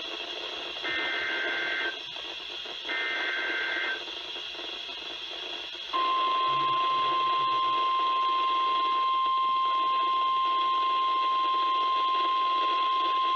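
NOAA Weather Radio Emergency Alert System activation heard through a weather radio receiver. Two buzzy two-tone SAME header data bursts play, each about a second long and a second apart, then a couple of seconds of radio hiss. About six seconds in, the steady single-pitch 1050 Hz warning alarm tone starts, which signals that a warning broadcast follows.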